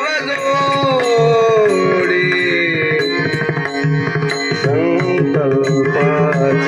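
Devotional kirtan singing: a male voice holding long, gliding notes over a steady held drone and hand-drum accompaniment.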